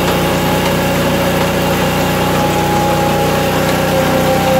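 Crossley 24-inch gillnet lifter running on a portable hydraulic power unit, its drum turning steadily: a constant mechanical hum with a faint higher whine on top.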